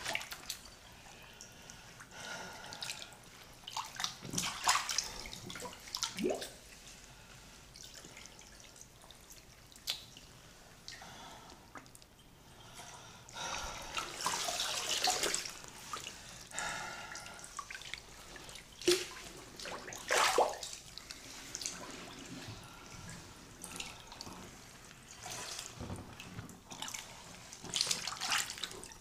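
Bathwater splashing and dripping in irregular bursts as a hand moves through a filled tub and over soaked clothing.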